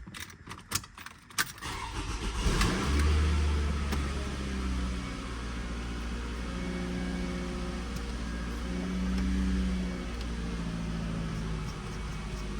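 Keys rattle, then the Toyota Camry's 2.4-litre four-cylinder engine cranks and catches about two seconds in, flares up in revs and settles into a steady idle. It is being run to bleed air from the refilled cooling system.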